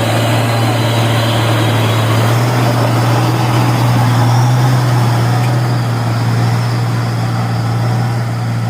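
Diesel truck engine working steadily under load as the truck crawls over a soft road, a loud low drone that swells slightly midway.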